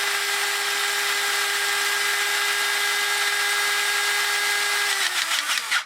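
Robo Crimp hydraulic crimping tool's electric pump motor running with a steady whine as it drives the piston out. About five seconds in, the pitch drops and stutters as the pressure builds to about 6 tons, then the motor cuts off automatically.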